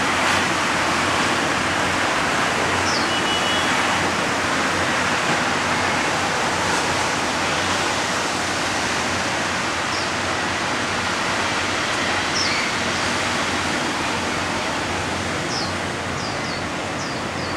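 Steady wash of outdoor background noise, with a few brief high chirps from small birds now and then, several in quick succession near the end.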